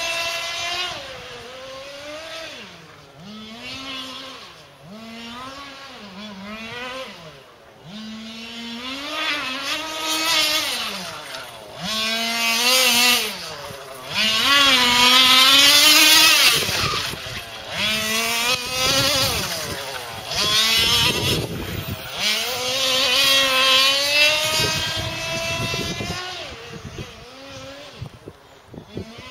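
1/5-scale RC car's tuned two-stroke petrol engine (Hobby Center ULTRA) racing round a track, its pitch climbing on each acceleration and dropping off into the corners, over and over. It is loudest about halfway through as the car passes closest.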